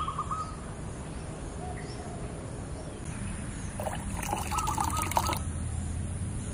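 Liquid trickling steadily, with a brighter, busier stretch of about a second and a half, some four seconds in.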